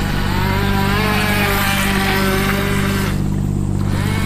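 A water-cooled 380 electric motor in a radio-controlled boat running under way, its whine shifting up and down in pitch with the throttle over a steady low hum. The whine drops out briefly near the end and then returns.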